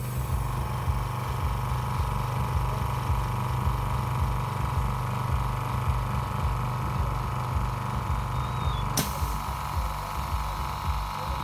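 A machine running steadily, a constant hum with a fast, even low pulsing and a steady higher tone over it.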